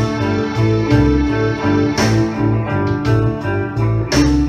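Instrumental passage of a rock song: electric guitar playing over a repeating bass line, with a sharp hit about every two seconds and no singing.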